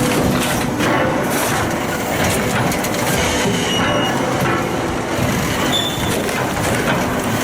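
Heavy wood-processing machinery running: a steady mechanical clatter with a few brief high metallic squeals.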